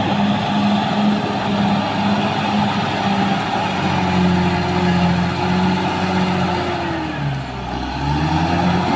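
Caterpillar D6R XL bulldozer's diesel engine running hard. About seven seconds in, its pitch sags for roughly a second and then climbs back.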